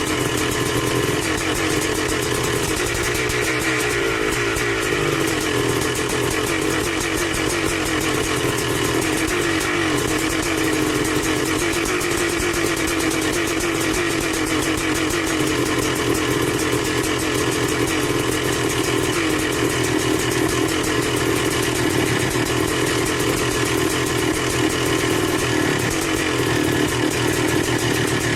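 High-compression 512cc single-cylinder two-stroke motorcycle engine running steadily, its pitch wavering slightly without any big revs.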